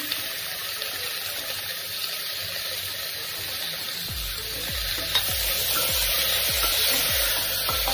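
Chopped tomatoes and onions sizzling in hot oil in a pressure cooker pan, stirred with a steel spatula. A steady frying hiss runs throughout; from about halfway it grows a little louder, with stirring strokes about two a second.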